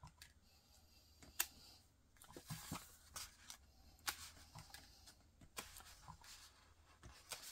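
Faint, scattered small clicks and soft paper rustling from card stock and a small plastic container of shaker bits being handled on a craft desk.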